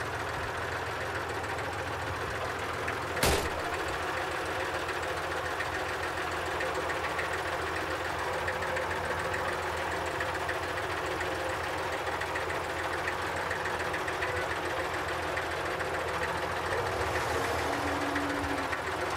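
Small tractor engine running steadily, with one sharp click about three seconds in.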